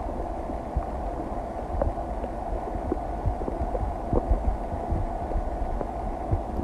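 A person's stomach digesting food: a low steady rumble with small, irregular pops and clicks.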